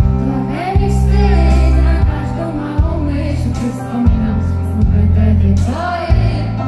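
A woman singing a pop song live into a microphone, with band accompaniment and a heavy bass line whose notes change about once a second.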